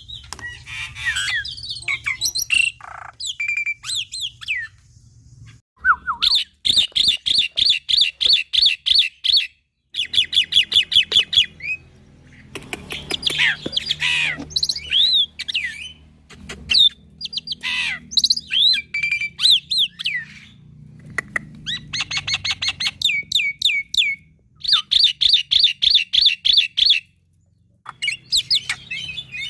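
Young black-winged starling singing a varied, vigorous song full of fill phrases. Bouts of fast, even trills of about ten notes a second alternate with whistled glides and harsh squawks, with a short pause near the end.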